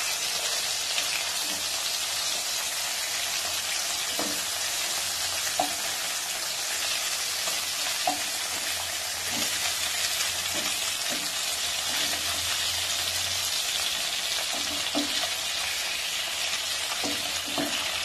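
Rui (rohu) fish steaks sizzling steadily as they fry in hot oil in a non-stick kadai, with scattered short scrapes and taps of a wooden spatula against the pan as the pieces are turned over.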